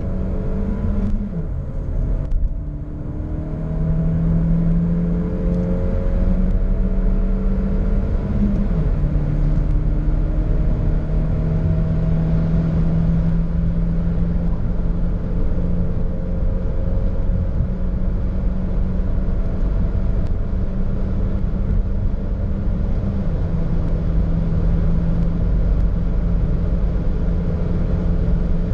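Suzuki SX4 S-Cross's 1.4 Boosterjet turbocharged four-cylinder under full-throttle acceleration, heard from inside the cabin. The engine note climbs steadily and drops at three upshifts: about a second in, around eight and a half seconds, and around twenty-three seconds. Steady road and wind rumble runs under it as the car nears its 200 km/h top speed.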